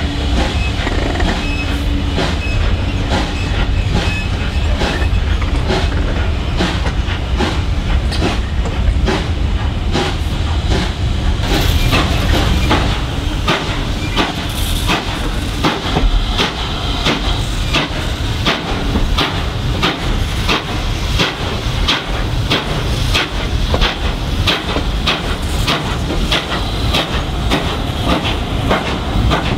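Steam-hauled passenger train heard from a carriage window: wheels clacking in a steady rhythm over rail joints, with a hiss of steam. A heavy low rumble fills the first third and then drops away.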